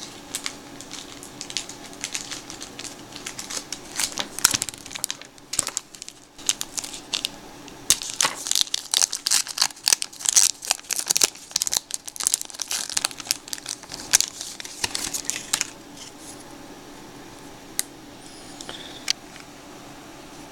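Crinkly red baseball-card pack wrapper being crumpled and torn open by hand: sharp crackling, scattered at first, densest from about eight seconds in, and stopping a few seconds before the end.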